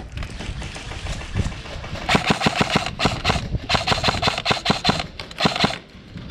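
Airsoft rifle firing two rapid full-auto bursts, the first about a second long, the second, after a short pause, about two seconds long, with a whine running under the shots.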